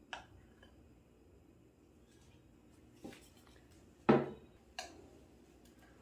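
A spoon clinking against a glass bowl of ganache, a few sparse clicks, with one louder knock about four seconds in as the bowl is set down on the wooden counter, and another clink soon after.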